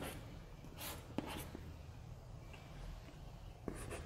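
Chalk on a blackboard: a few short, faint scratching strokes with light taps of the chalk, spaced about a second or more apart, as lines are drawn.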